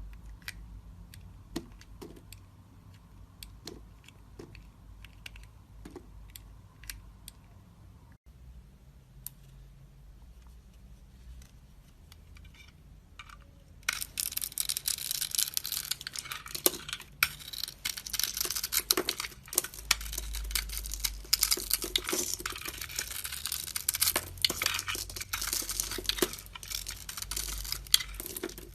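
Blade cutting into a bar of soap: sparse light clicks and ticks at first, then from about halfway a louder, dense crackling and crumbling as the blade carves through the soap.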